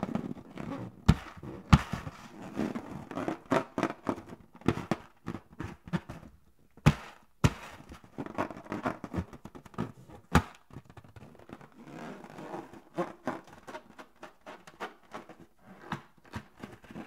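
Inflated latex balloon handled in bare hands: rubber squeaking and rubbing against the skin, with irregular sharp taps and thumps, the loudest a few single knocks scattered through.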